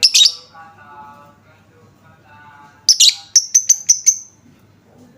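Lovebird calling: a loud shrill screech at the very start, then a quick run of about seven sharp chirps around three seconds in, over softer warbling chatter.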